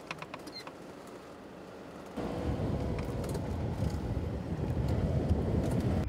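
Off-road vehicle driving over desert sand, heard from inside the cab. It starts as a faint drone, and about two seconds in a loud, steady rumble of engine and tyres takes over.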